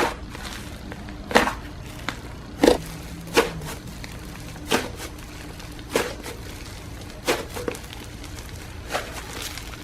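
Slime being pressed and squished by hand, giving a short sharp pop or crackle with each press, about once every second and a half.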